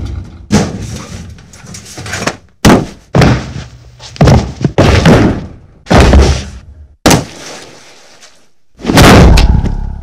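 A run of fight sound effects: about nine sharp, heavy hits and impacts, each ringing out briefly, some under a second apart, with a longer, loud hit near the end.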